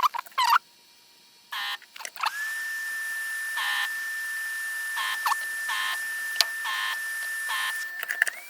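Desoldering gun's vacuum pump running with a steady whine and hiss, sucking molten solder out of a circuit-board connector's through-holes, with a few short pulses along the way. Two short sharp chirps come right at the start, and the pump starts about two seconds in and stops just before the end.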